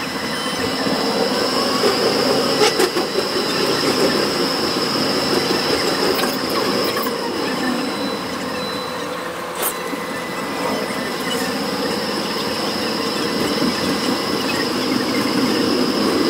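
A Melbourne tram running along its tracks, heard from inside the car: a steady rumble of wheels on rail, with a thin high whine and a fainter motor tone that rises and falls in pitch as the tram changes speed.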